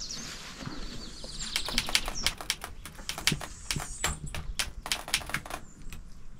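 Footsteps crunching over dry grass and leaves: a run of sharp, irregular crackles. A high, fast pulsing trill fades out in the first second or so.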